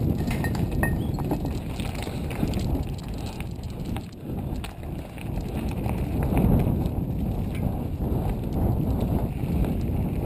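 Mountain bike riding along a dirt trail: a steady rumble of tyres on the ground with many small knocks and rattles as the bike goes over bumps.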